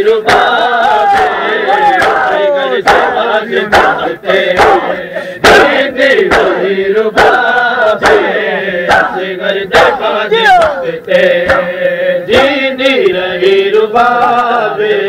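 Loud crowd of male Shia mourners chanting in unison during matam, with repeated sharp slaps of hands striking bare chests cutting through the chant.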